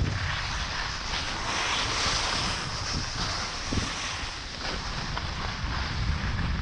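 Wind buffeting the microphone of a camera carried by a moving skier, with the continuous hiss of skis sliding over packed snow that swells and fades with the turns.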